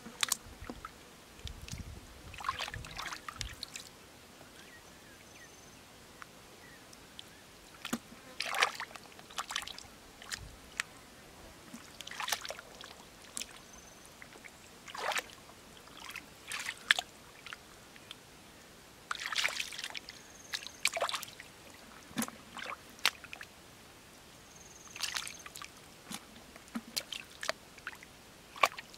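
Shallow muddy water splashing and sloshing in short bursts every few seconds, as bare feet and hands move through it and the mud, with quiet gaps between.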